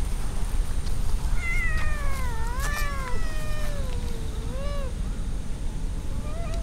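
A cat meowing several times: a long, drawn-out meow that bends down and up in pitch, starting about a second and a half in, then a shorter meow around four seconds, and another beginning near the end. A steady low rumble runs underneath.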